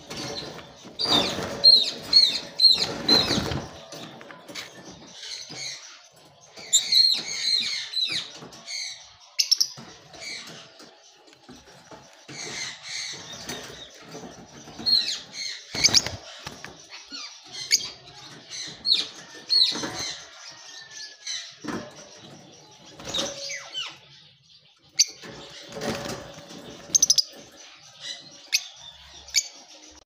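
Caged lovebirds chirping in short, high-pitched calls that come in quick runs, with a few sharp knocks in between.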